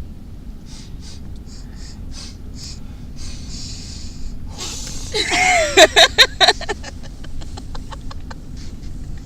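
A person laughing hard. Short wheezy breaths build to a burst of loud, pulsing laughter a little past halfway, which then trails off in fainter breathy gasps.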